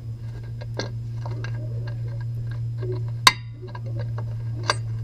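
A few scattered sharp metallic clicks and clinks from a wrench working on the engine mount bolts, the loudest and most ringing about three seconds in, over a steady low hum.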